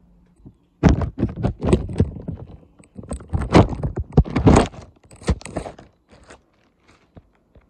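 Handling noise from a phone being moved about: rapid scraping, rubbing and knocking against the microphone, dense for about five seconds and then dying away near the end.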